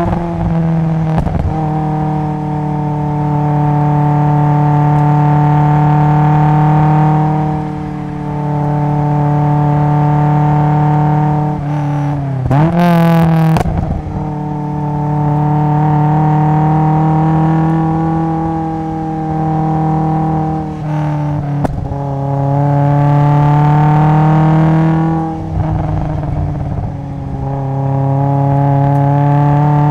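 Exhaust note of a 1983 Toyota AE86 Sprinter Trueno running a swapped-in AE111 20-valve 4A-GE four-cylinder through an RS Harada single-tail muffler, recorded at the rear bumper. The engine holds steady revs under throttle for several seconds at a time and eases off several times between corners, with a quick drop and rise in pitch about halfway through.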